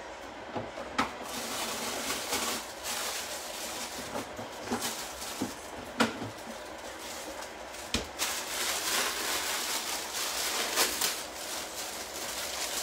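Plastic bag of fresh parsley being handled and crinkled, an uneven rustling hiss with a few sharp knocks about 1, 6, 8 and 11 seconds in.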